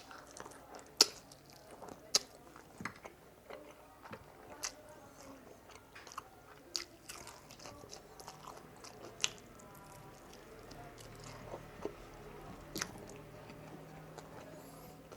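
A person chewing and biting into spicy frog legs close to the microphone: wet mouth clicks and crunches every second or two, the sharpest about a second in and again about two seconds in.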